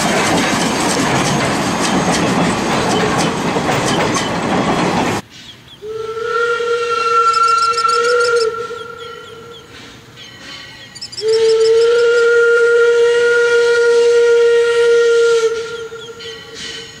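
A 2-6-0 steam locomotive rolling past close, its wheels clattering loudly on the rails. This stops abruptly, and then a steam locomotive whistle blows two long blasts. The first starts about six seconds in, and the second, longer one comes about eleven seconds in.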